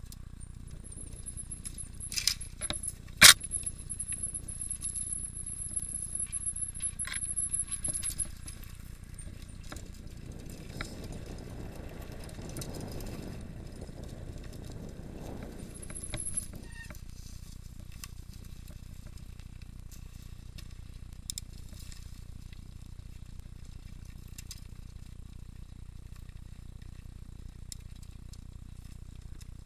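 Mountain bike rolling over bare rock and then a forest dirt trail, the bike rattling and clinking, with a sharp knock about three seconds in. A thin high whine runs through the first eight seconds, and a rushing rolling noise from about ten to sixteen seconds.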